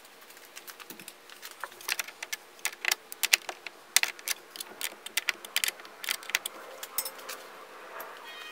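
Irregular metallic clicks and clinks of a hand wrench working the nut on a heavy gauge cable's ring terminal at a fuse box stud. They start about a second in, come rapidly in the middle, and thin out near the end.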